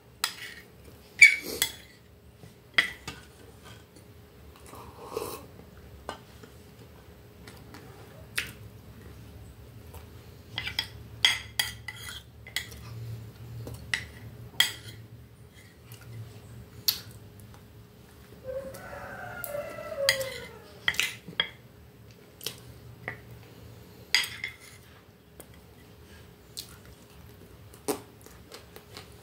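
Metal spoon clinking and scraping against a plate as cake is cut and scooped, in scattered sharp taps at irregular intervals.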